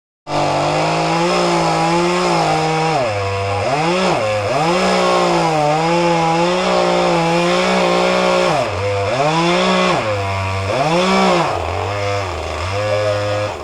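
Chainsaw running at high revs, with the throttle let off and squeezed again several times so that the engine note drops and climbs back, with longer dips near the end.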